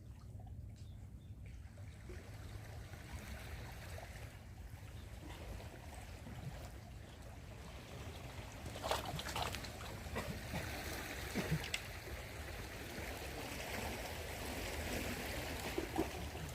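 Sea water lapping and trickling over a steady low rumble, with a few short splashes or knocks from about nine seconds in.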